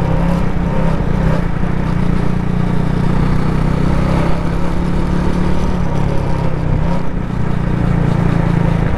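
Benelli Leoncino 250's single-cylinder engine running steadily under way at low speed, heard with a steady rush of wind and road noise; the engine note eases briefly about seven seconds in.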